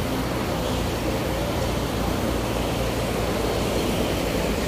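A Sumitomo S265 excavator's diesel engine running steadily as the machine slews round.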